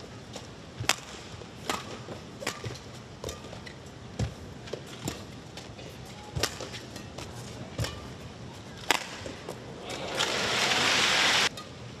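Rackets striking a badminton shuttlecock in a rally, a sharp crack roughly every second. Near the end a short burst of crowd cheering as the point ends, which cuts off suddenly.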